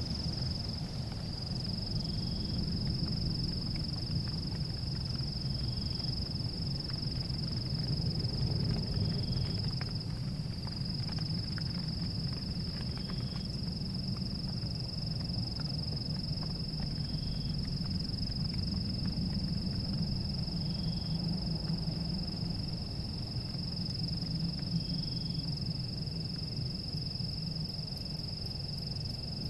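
Steady high-pitched whine with a short, fainter tone repeating about every three and a half seconds, over a continuous low rumble; ambient background sound with no speech.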